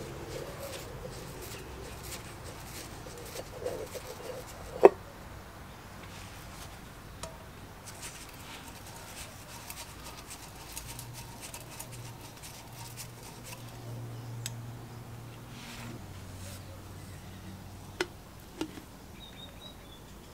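Flat-blade screwdriver working the small screws on the end cover of a Sprayit diaphragm airbrush compressor motor: light metal scraping and small ticks. Sharp metal clicks stand out, the loudest about five seconds in and two more near the end.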